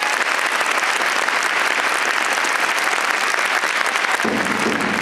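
Large stadium crowd applauding as a steady, dense clatter of clapping. Near the end, crowd voices begin to rise in under the clapping.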